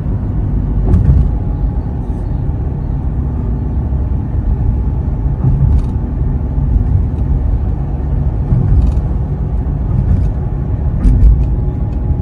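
Fiat Punto 1.2 16V's four-cylinder petrol engine and tyre noise heard from inside the cabin while driving along, a steady low rumble with a few faint clicks.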